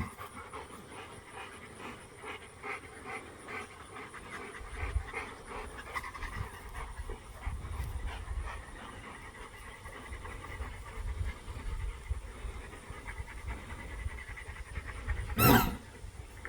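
St. Bernard puppy panting in quick, even breaths, with a low rumble underneath from a few seconds in. One loud, sharp knock comes near the end.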